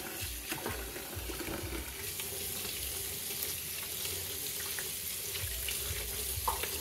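Kitchen tap running a steady stream of hot water into a plastic tub in the sink, with splashing and the small squeaks and clicks of hands rubbing leftover glue off a plastic golf disc under the stream.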